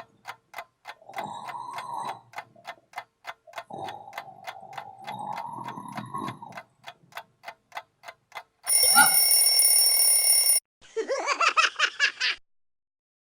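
A clock ticking steadily under slow, drawn-out snoring. About nine seconds in, an alarm clock rings loudly for about two seconds and cuts off, followed by a brief wavering pitched cry.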